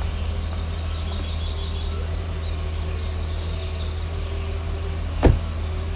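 Birds chirping in short quick runs over a low steady rumble, with a single thump about five seconds in as a car door shuts.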